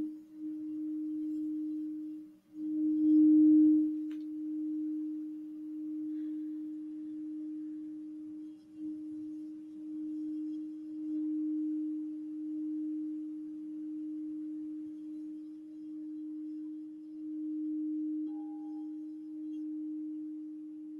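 Crystal singing bowl with an iridescent finish, sounded with a wand, holding one steady hum that swells and fades in slow pulses. It drops out for a moment about two and a half seconds in, then comes back louder. A faint higher ring joins near the end.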